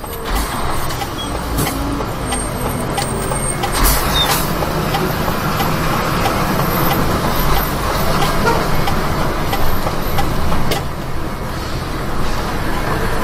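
Mercedes-Benz Axor 1840 truck's diesel engine running steadily while the truck drives slowly, heard from inside the cab. A few brief sharp sounds come about four seconds in and again near eleven seconds.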